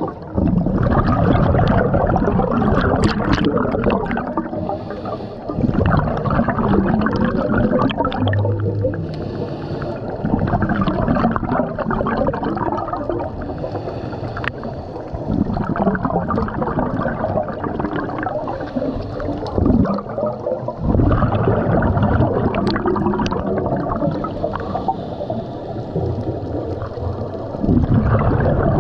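Bubbling and gurgling of a scuba diver's exhaled breath underwater, coming in bursts a few seconds long every several seconds.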